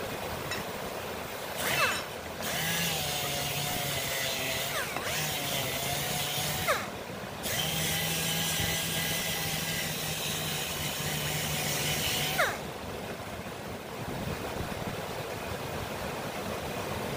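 An electric power tool, most likely a grinder working the bearing steel, spins up about two seconds in and runs with a steady hum and hiss. It dips briefly near five seconds, stops and restarts around seven seconds, and winds down about twelve and a half seconds in. A steady background hiss continues.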